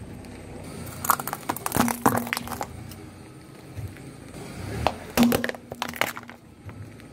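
Car tyre rolling over and crushing small brittle objects on asphalt: clusters of sharp cracking and crunching, about a second in, again around two seconds, and again around five to six seconds in.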